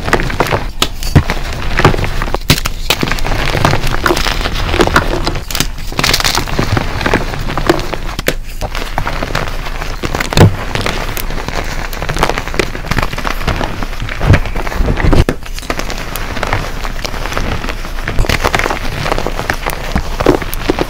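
Dyed gym chalk blocks being crushed and crumbled by hand in a bowl of loose chalk powder: dense crunching and crackling, with a few sharper, louder snaps as chunks break.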